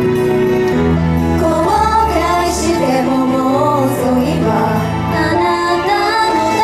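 A female idol group singing a J-pop song live over pop backing music, with a steady bass line under the sung melody.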